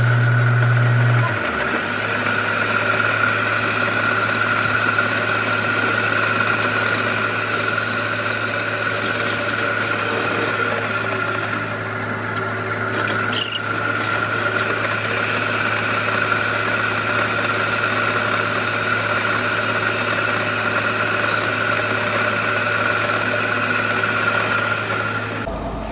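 Metal lathe running with its chuck spinning a small steel tube: a steady motor hum under a steady high-pitched whine. The hum eases a little about a second and a half in.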